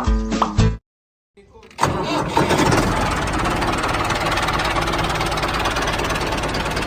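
An engine starts up about a second and a half in, after a brief silence, and then runs steadily with a fast, even firing.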